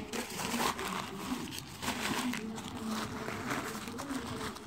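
Paper wrapping rustling and crinkling in irregular bursts as it is handled, over a faint low hum.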